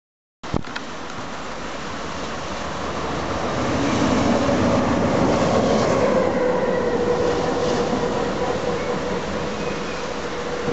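Train running past on the rails, the rumble building for a few seconds and then easing slowly, with a steady whine in the second half. The sound cuts in abruptly with a click about half a second in.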